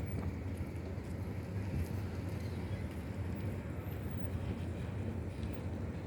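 Steady low rumble of the sea, with wind buffeting the microphone.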